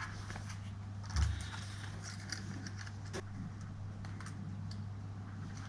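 Small plastic clicks and taps of a laptop keycap being worked onto its keyboard while someone tries to clip it in place, with one louder knock about a second in, over a steady low hum.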